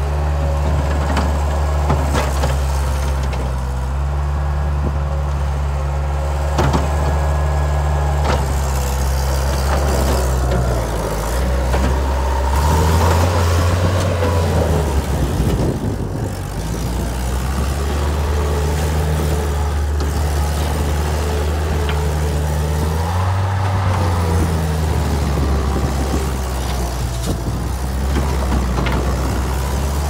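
Bobcat 773 skid-steer loader's diesel engine running as the machine drives and turns on dirt, its pitch shifting up and down with throttle and load. A few sharp clanks in the first several seconds.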